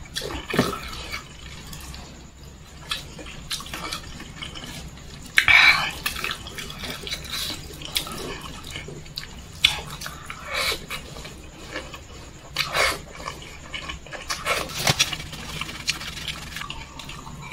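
Close-up wet chewing and lip-smacking of a person eating fried chicken and rice with the fingers, with many sharp wet clicks and a few louder bursts.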